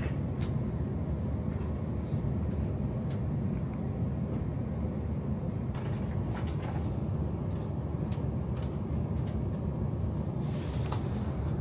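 Inside a passenger train: the steady low rumble of the train running on the rails, with a few faint clicks and a brief hiss near the end.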